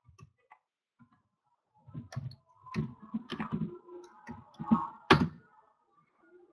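Typing on a computer keyboard: short, irregular runs of keystrokes beginning about two seconds in, with one sharper click about five seconds in.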